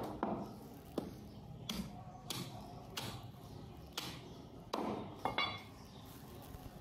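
A butcher's cleaver chopping meat, a series of sharp knocks at a fairly even pace, about eight strokes, with a brief ringing after one near the end.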